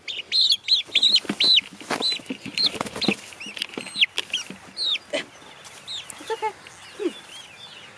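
Young chicks peeping in quick, arched high calls, several a second, as they are caught and held by hand. The calls thin out in the second half, with a few lower squawks and some knocks.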